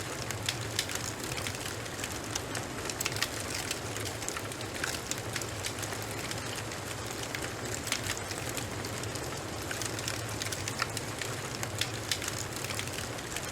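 Fireplace fire crackling: irregular sharp pops and snaps over a steady low hum.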